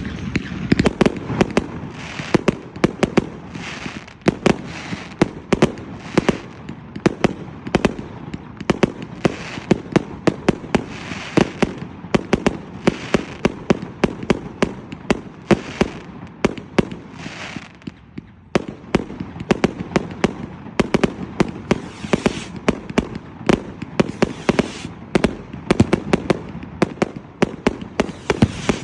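A 228-shot Punisher firework cake firing: rapid shots, several a second, going on without a break except for a brief lull about two-thirds of the way through.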